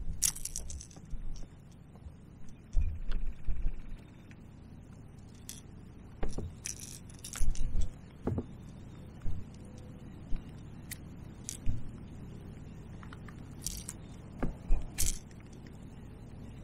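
Irregular light metallic jangling and clicking of a fishing lure and its hooks being handled while a small bass is unhooked, with a few dull knocks in between.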